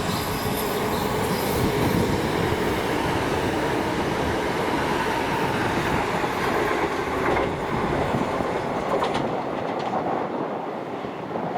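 A train running on the line, a steady loud rumble of wheels on rail with a few clacks over rail joints, fading near the end.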